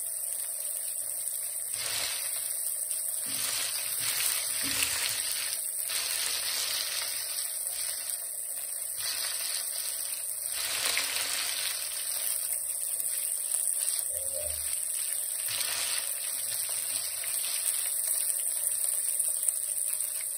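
Breaded Black Sea gobies sizzling steadily as they fry in oil in a skillet. Short scrapes every second or two come from forks turning the fish in the pan.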